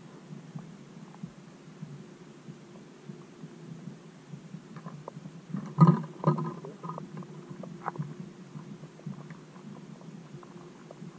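Muffled underwater sound from a camera sealed in a waterproof housing beneath the pond ice: a low, steady rumble with scattered faint clicks, and a short cluster of louder knocks about six seconds in.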